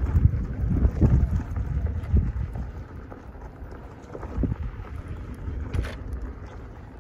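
Wind buffeting the microphone in uneven low gusts, loudest in the first two seconds and again about four and a half seconds in, with one sharp click near six seconds.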